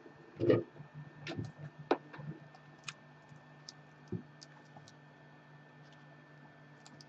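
Scattered light clicks and ticks as the cracked iPad 2 digitizer glass is handled and eased up from its frame by gloved hands, over a faint steady hum.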